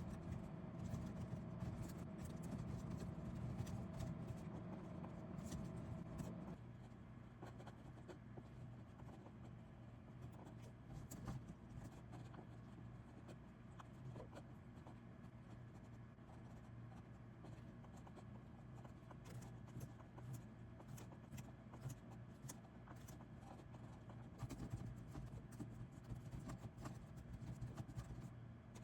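Faint, irregular scratching and light tapping at close range, over a low steady hum that cuts off about six and a half seconds in.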